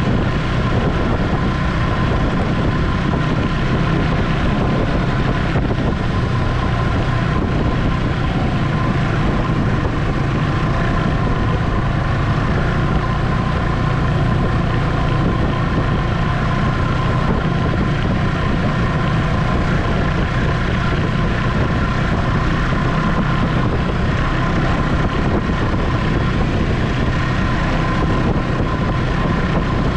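Ski-Doo Expedition SE snowmobile running at a steady cruising speed, its engine and track giving a constant hum with a steady high whine over it.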